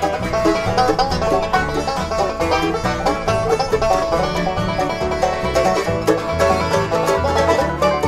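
Bluegrass music: quick banjo picking over a moving bass line.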